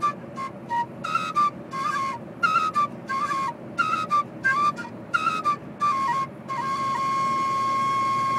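Shabbaba, a Levantine end-blown cane flute, playing short repeated folk phrases with brief breaks, then holding one long steady note from about two-thirds of the way through. Steady low road noise of the car cabin runs underneath.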